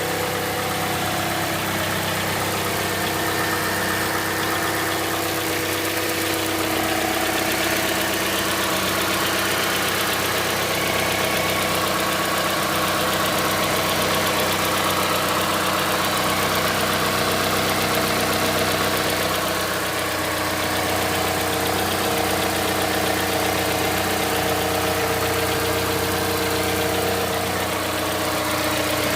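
Mazda CX-5's 2.5-litre Skyactiv-G four-cylinder petrol engine idling steadily while still cold, in its warm-up after a cold start.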